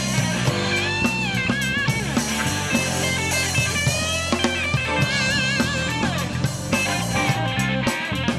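Blues-rock band playing live: an electric guitar lead with vibrato and string bends over bass guitar, drum kit and keyboard.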